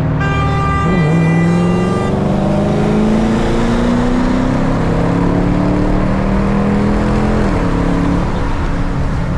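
Car engine under acceleration, its pitch climbing slowly for several seconds and dropping sharply about seven and a half seconds in, as at a gear change. A steady high tone sounds over it for the first two seconds.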